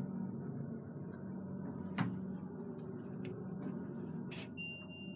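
Passenger lift car travelling between floors: a steady low hum with two light clicks, then a single high beep about a second long near the end.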